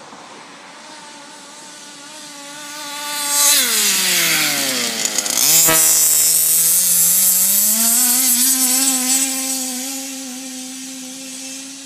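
The two-stroke petrol engine of a large-scale Baja RC car buzzing at high revs. It grows loud as the car comes close, its pitch slides steeply down, then climbs back to a steady high buzz as it pulls away. A brief knock sounds near the middle.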